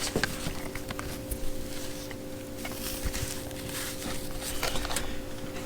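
Work gloves and their card packaging being handled: light rustling with scattered small clicks, over a faint steady hum.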